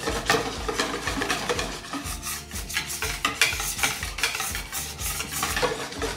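Wire balloon whisk beating a thin chickpea-flour-and-water batter in a bowl: a fast, continuous run of clicks and scrapes as the wires knock the bowl and churn the liquid, whisking it until it is free of lumps.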